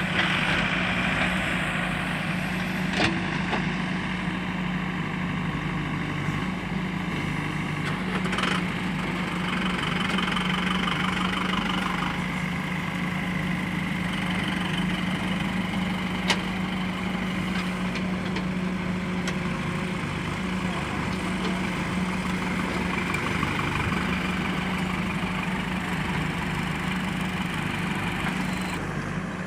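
JCB backhoe loader's diesel engine running steadily, with a few sharp knocks or clanks from the machine's work now and then.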